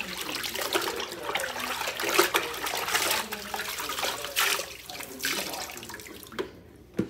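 Kitchen sink tap running with uneven splashing, as of something being rinsed under it. The water stops about six and a half seconds in, followed by a single knock.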